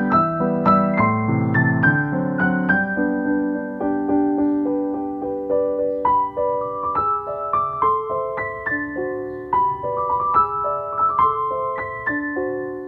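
Background music: solo piano playing a slow melody of single struck notes over lower held notes.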